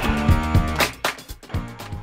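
Background music: a guitar-led track with a steady beat, softening about a second in.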